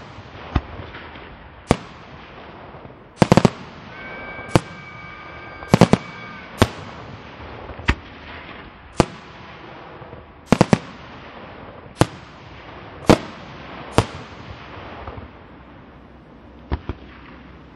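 Aerial firework shells bursting in a display: sharp bangs at irregular intervals, roughly one a second, some in quick pairs, with a haze of crackling and rumble between them.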